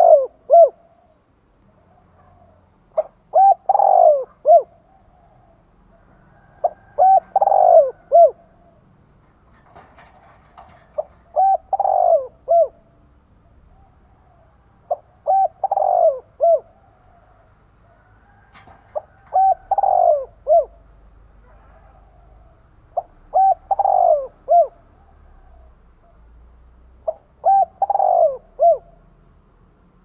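Spotted dove cooing: a phrase of several short coos, the loudest one falling in pitch, repeated about every four seconds, eight times.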